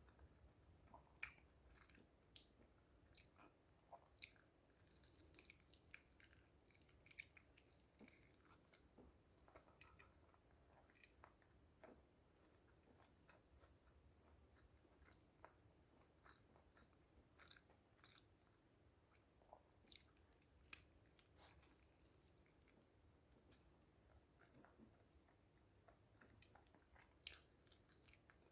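Faint sounds of a person chewing and biting food, with scattered small crunchy clicks throughout.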